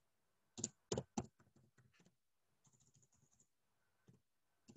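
Computer keyboard keys being typed: three clearer clicks about half a second to a second and a quarter in, then fainter scattered taps, with another near the end.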